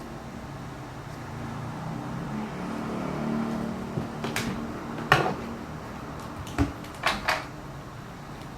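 A handful of sharp knocks and clicks from hard objects being handled and set down, the loudest about halfway through, over a low steady hum.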